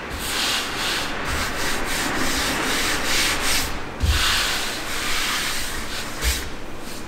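Palms rubbing and brushing across the faces of wooden boards, a dry hiss that swells with each stroke. A light thump about four seconds in starts the strongest stroke.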